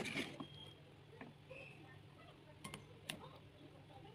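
Faint clinks and taps of a metal ladle against an aluminium wok as soup is scooped out into a bowl, with a sharper knock at the start and a few scattered light clicks after.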